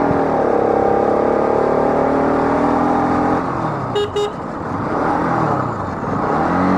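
Bajaj Pulsar RS200's single-cylinder engine running under way on its stock exhaust, easing off about halfway through and picking up revs again near the end. A horn beeps twice in quick succession just past the middle.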